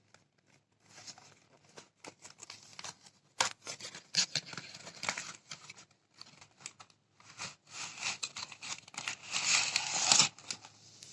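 Packaging being handled and opened: irregular crinkling, rustling and tearing with small clicks, loudest a little before the end.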